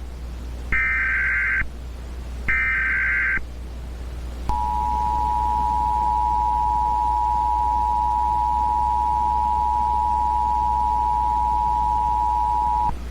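Emergency Alert System tones. First come the SAME header's short data bursts, each about a second long with a brief gap between them. After a short pause the EAS two-tone attention signal sounds, holding steady for about eight seconds before it cuts off.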